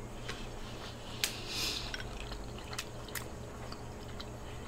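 Close-miked chewing of seafood: scattered soft wet mouth clicks, with a short hissing rustle about a second and a half in.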